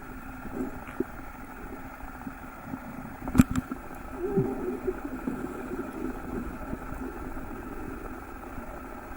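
Steady motor hum with a few faint held tones, and a single sharp click about three and a half seconds in.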